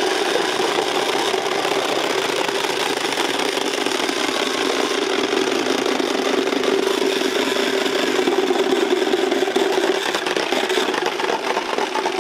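Wooden Easter rattles (Klappern) rattling steadily as a group, a dense run of rapid wooden clicks. This is the Holy Week rattling that stands in for the silent church bells.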